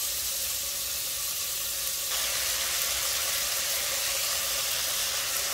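Beef cubes sizzling steadily as they brown in oil and butter with onion and garlic in a pot over medium heat.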